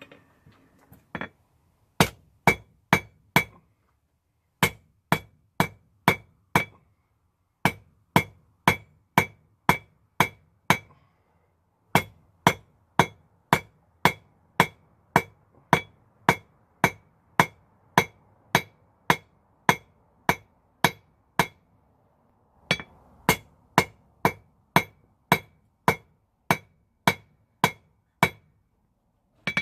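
Blacksmith's hand hammer striking hot rebar on an anvil, about two blows a second in runs of several strikes with short pauses between, each blow ringing with a high metallic tone.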